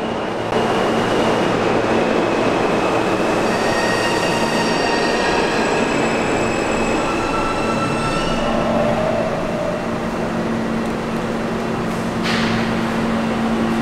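Subway train running through the station with a steady rumble, its wheels squealing in several high, steady tones for a few seconds in the middle.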